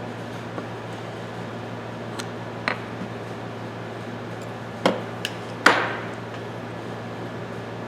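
Scattered light metallic clicks and knocks from small ratchet parts and hand tools being handled during reassembly. The loudest comes about five and a half seconds in, with a brief ring.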